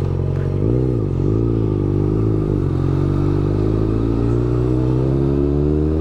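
Yamaha XJ6's inline-four engine running through an open straight-pipe exhaust, heard from the bike while riding. The revs dip and waver about a second in, then climb steadily as the bike accelerates.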